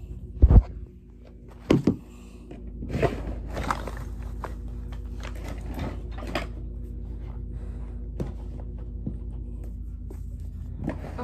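Household objects being handled and set down: a heavy thump about half a second in, two sharp knocks just under two seconds in, then scattered clicks and rustling over a steady low hum.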